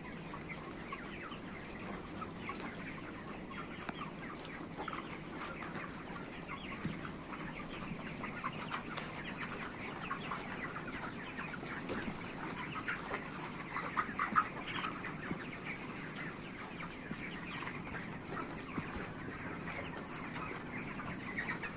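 A large flock of 35-day-old chickens clucking and chirping continuously, many birds calling over one another, a little busier about two-thirds of the way through.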